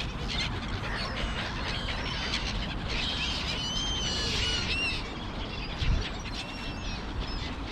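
Birds of a flock on a field calling over each other: many short, thin, high chirps and squeaky calls, some gliding in pitch, over a low steady rumble.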